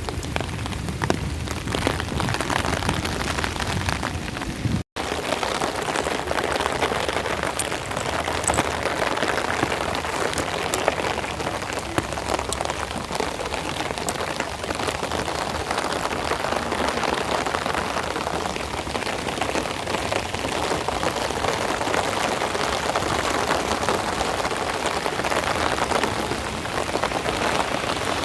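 Steady rain falling, an even hiss of many drops striking surfaces. It breaks off for an instant about five seconds in.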